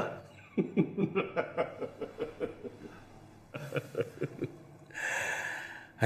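A man laughing in short repeated chuckles, in two bouts, the second beginning about three and a half seconds in, then a breathy exhale near the end.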